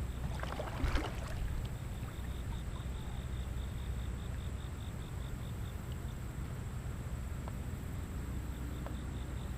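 Steady low outdoor rumble of moving river water and wind on the microphone, with a short rustle about a second in and a faint, fast, even ticking.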